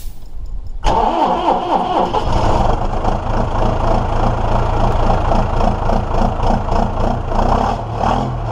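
An engine starting about a second in and then running steadily, loud and uneven.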